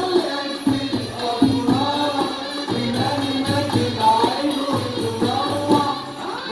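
Music with singing over a beat of hand-drum strokes and tambourine jingles.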